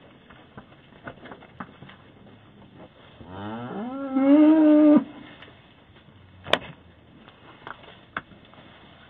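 A cow mooing once, a single long call starting about three seconds in that rises in pitch, holds, then cuts off abruptly, picked up by a Ring doorbell camera's microphone. Two sharp knocks follow near the end.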